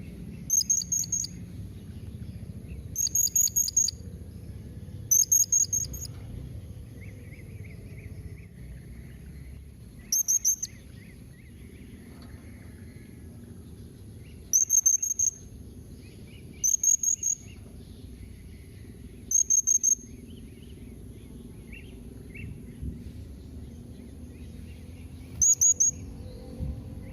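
Blue-crowned hanging parrot (serindit) giving short, shrill, very high-pitched call bursts, each a quick run of notes, about nine times with gaps of a second or more. Fainter, lower chirps come in between over a low background rumble.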